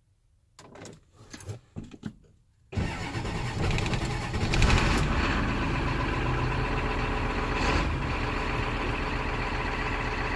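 A few light clicks, then a Ford 7.3 IDI V8 diesel is cranked by a new gear-reduction starter with a higher-pitched whine, fires about three seconds in and settles into a steady idle.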